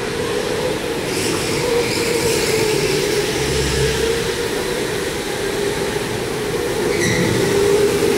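Electric go-karts running on an indoor track: a steady electric motor whine over tyre and rolling noise. It grows slightly louder near the end as a pack of karts comes close.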